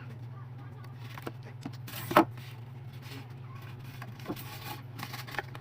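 A few sharp knocks and clatters from objects being handled, the loudest about two seconds in, over a steady low hum.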